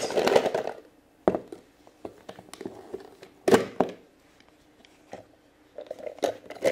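A plastic toy honey pot's lid is pulled off with a brief scrape. Then come a few separate plastic knocks and small clicks as hands rummage among plastic Play-Doh tubs inside it; the loudest knock is about three and a half seconds in.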